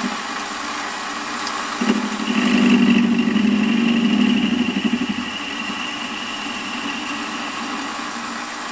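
Warco WM180 lathe running with its 4-jaw chuck spinning, as the tool takes a facing cut across the end of an aluminium block. The sound swells about two seconds in and eases off around five seconds, then carries on steadily.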